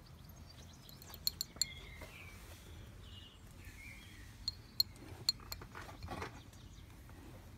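Small plastic tick-remover hooks clinking against a ceramic dish as a hand picks them up and moves them. A few light, sharp clicks come in two clusters, about a second in and again around five seconds in.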